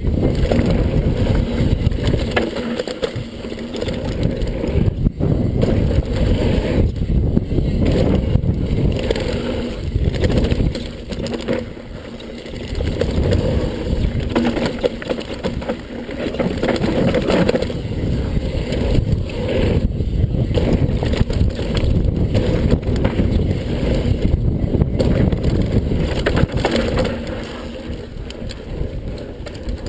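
Mountain bike riding fast down a dirt trail: a steady low rumble of tyres and trail chatter, broken by short knocks as the bike rattles over bumps, easing off briefly about twelve seconds in and again near the end.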